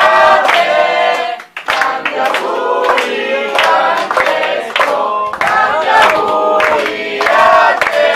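A group of people singing together in chorus, with hands clapping along.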